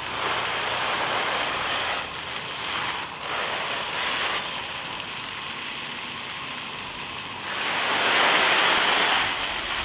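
Garden hose spray nozzle spraying water onto leafy plants: a steady hiss that grows louder near the end.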